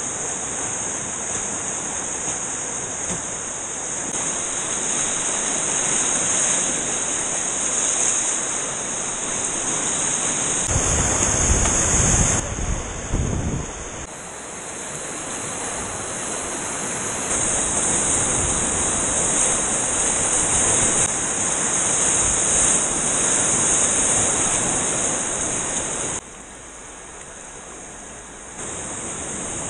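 Rushing river whitewater: a steady roar of rapids around paddleboards, with abrupt jumps in level where shots change. Wind buffets the microphone for a few seconds about a third of the way in.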